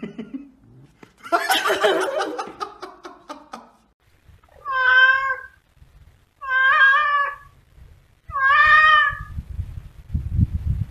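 A domestic cat meowing three times, each call about a second long with a steady pitch and about two seconds between them. These follow a loud, rough burst of noise about a second in, and low rumbling comes near the end.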